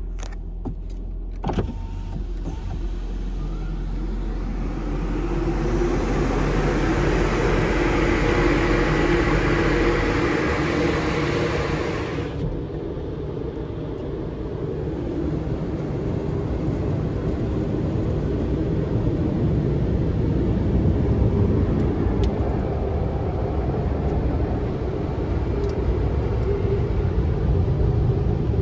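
Water Wizard automatic car wash machine running through a wash cycle. A single knock comes about a second and a half in, then a loud hiss builds from about four seconds in and cuts off suddenly about twelve seconds in, over a steady low mechanical rumble.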